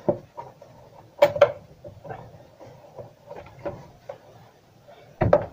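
Plastic knocks and clunks of an engine intake pipe being pulled off its push-on mounts and handled. The loudest is a pair of knocks about a second in, with a few softer taps later.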